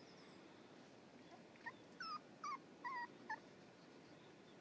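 Six-week-old schipperke puppy whimpering: about five short, high whines in quick succession, starting a little under two seconds in.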